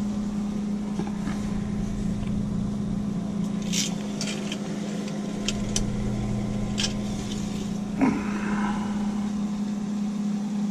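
Steady hum of a boat's air-conditioning system running, with a few light clicks of a metal dipstick being handled and wiped on a rag in the middle.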